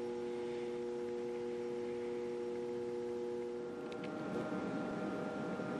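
Steady electrical hum from powered bench electronics, a few pure tones held without change. About four seconds in, a cut switches it to a different, higher-pitched hum with more hiss.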